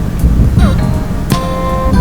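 Loud background music with heavy bass, regular drum hits and synth tones.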